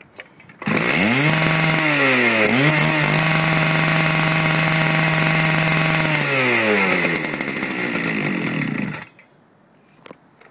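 Stihl TS400 cut-off saw's two-stroke engine starting up about a second in. Its speed rises, dips briefly and picks up again, then it runs steadily for about four seconds before winding down and stopping near the end.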